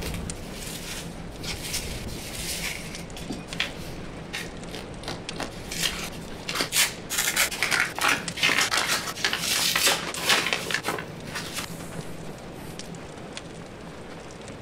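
Gift-wrapping paper being handled and pulled off a small box: rustling and crinkling, with many sharp crackles. The crackling is busiest and loudest in the middle and eases off near the end.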